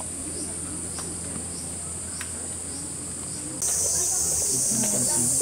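A steady, high-pitched chorus of insects droning, which jumps louder about three and a half seconds in.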